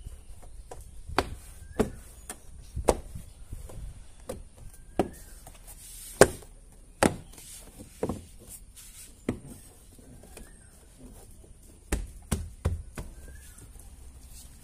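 Irregular sharp knocks and taps, about a dozen, from hands working on a car door while fitting its panel and soundproofing back into place.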